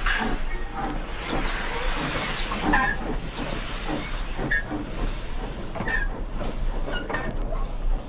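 Model steam tank engine (a Dapol B4 with a digital sound decoder) playing slow steam chuffs over steady hiss as it moves along. There are a few short higher squeaks between the chuffs and a faint low hum underneath.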